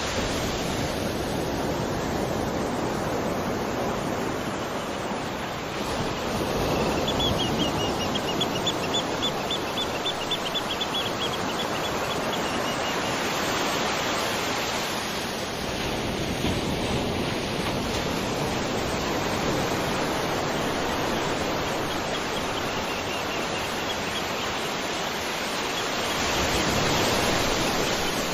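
Waterfall rushing in a steady, continuous noise that swells at times. A high, rapidly pulsing trill joins for a few seconds near the middle and again faintly later.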